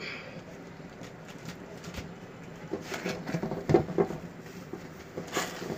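Silicone spatula stirring thick caramel in a pot, with a run of scraping knocks against the pot about three to four seconds in and another just before the end.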